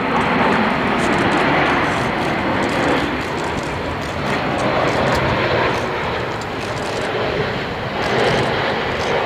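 Jet engines of a Boeing 787-9 Dreamliner on final approach with its landing gear down, a steady rushing engine noise as the airliner flies past low toward the runway.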